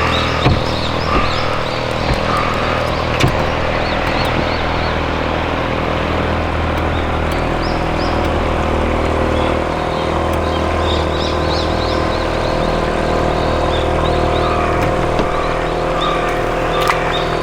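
Boat motor running steadily at an even pitch, with birds chirping over it and a few light clicks.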